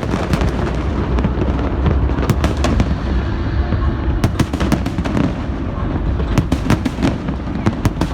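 Fireworks display: a continuous low rumble of shell bursts with many sharp crackling reports layered over it, coming thickest about halfway through and again near the end.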